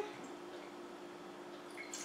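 Faint trickle of vinegar poured from a bottle into a tablespoon, over a steady low hum.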